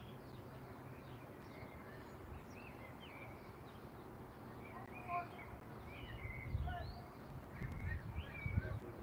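Several songbirds chirping and whistling in short, scattered calls. In the second half, low gusty rumbles of wind buffet the microphone.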